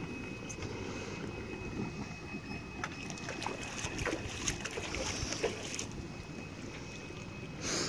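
Jet ski engine running steadily at low speed a short way off, a low even rumble. There is a short burst of noise near the end.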